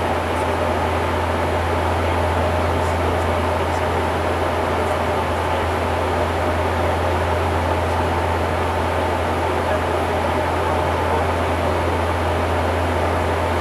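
Bombardier Q400 turboprop flight-deck noise in cruise: a steady low drone from the six-bladed propellers over a constant rush of engine and airflow noise.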